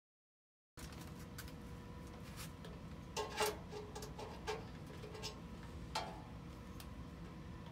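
A few light clicks and taps from hands working a part into the cutout in a beer keg's epoxy-coated tabletop. They are clustered between about three and six seconds in, over faint room tone with a steady hum.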